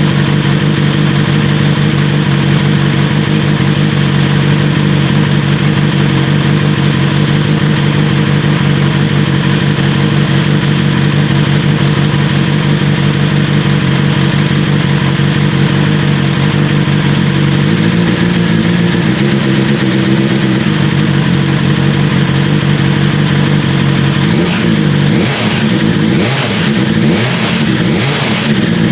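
BMW S1000R inline-four engine running through an Austin Racing V3 Mini slip-on exhaust, idling steadily after a cold start. In the last few seconds the throttle is blipped several times, the revs rising and falling quickly.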